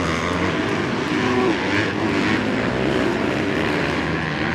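Several motocross bike engines running hard on the track, their pitch rising and falling as the riders go on and off the throttle.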